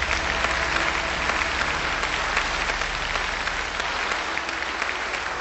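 A large crowd applauding, many hands clapping at once at a steady level.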